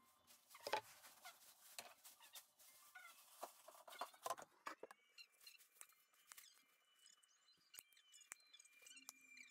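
Faint clicks and snips of diagonal cutters trimming and handling a hardened paper mache skull, the sharpest about a second in and again around four seconds in.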